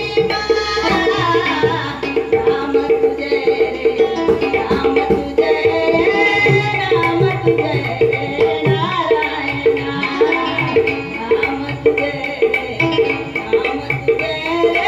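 Marathi devotional bhajan: a melody with a singing voice over a steady tabla rhythm and a held, pulsing drone tone.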